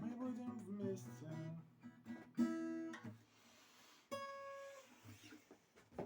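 Acoustic guitar playing the closing chords of a song: picked notes, then one loud strummed chord about two and a half seconds in, and a single ringing note about four seconds in that fades away.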